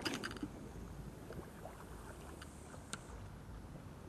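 Water lapping and sloshing against a kayak under way, with a steady low wind rumble and a few faint ticks and small splashes.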